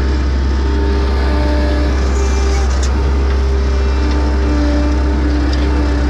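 A rice combine harvester's engine and machinery running steadily, heard from on board the machine: a constant low hum with whining tones that come and go above it.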